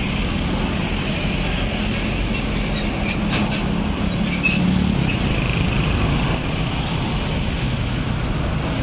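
Busy road traffic passing: motor scooters, cars and trucks driving by with engines running and tyre noise, a little louder around the middle.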